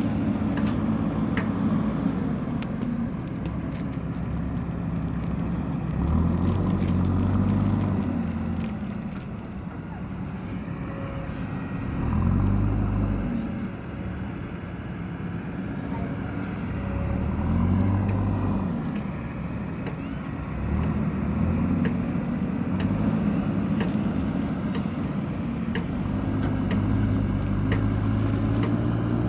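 JCB backhoe loader's diesel engine working, its pitch and level rising and falling repeatedly as it takes load, with scattered faint knocks.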